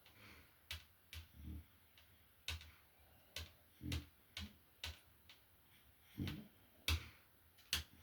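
A sleeping French bulldog snoring softly, one low breath every two to three seconds. Sharp, irregular clicks fall between the breaths, about ten of them.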